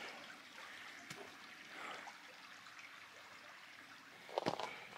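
Faint, steady rush of a small mountain creek flowing, with a few soft knocks near the end.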